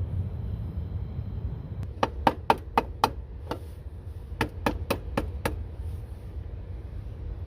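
About eleven sharp knocks or clicks in two quick runs, the first about two seconds in and the second about four and a half seconds in, over a steady low rumble of wind on the microphone.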